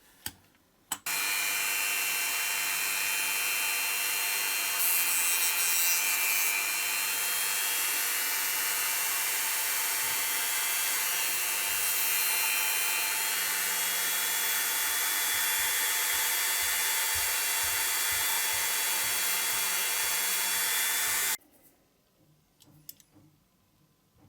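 A small electric power tool running steadily for about twenty seconds while working material, starting and stopping abruptly. A few light clicks come just before and after it.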